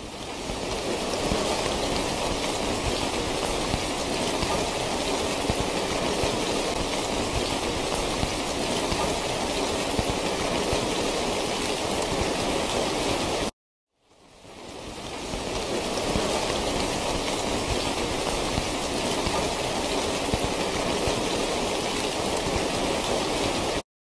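Steady rain falling, with no single drops standing out. The rain fades in at the start, cuts off suddenly about halfway through, then fades back in, and it cuts off again at the very end, the way a looped recording restarts.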